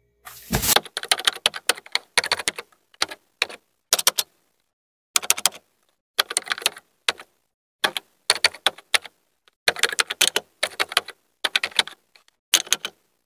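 Typing sound effect: rapid key clicks in short runs with brief pauses between them, keeping pace with text being typed onto the screen. There is a heavier knock about half a second in.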